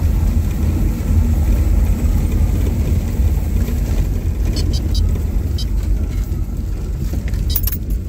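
Car interior noise while driving slowly downhill: a steady low engine and road rumble, with a few light clicks and rattles about halfway through and again near the end.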